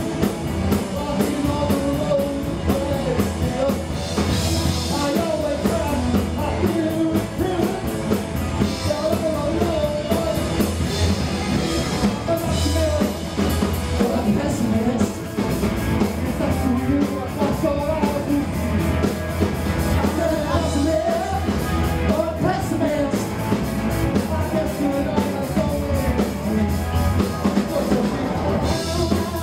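Live rock band playing a song: electric guitars and drum kit driving a steady beat, with a male singer.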